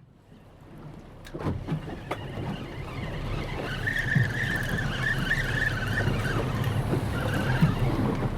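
Seaside soundscape fading in: a steady low rumble of wind and surf, with a few sharp knocks early on and a wavering high tone in the middle.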